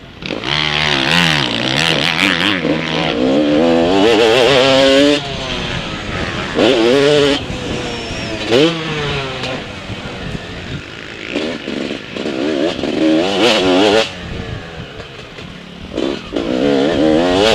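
Motocross bike engine revving hard and falling away again and again as the rider accelerates, shifts and rolls off the throttle around a dirt track. The revs climb in loud rising runs and cut back sharply about five seconds in and again near fourteen seconds.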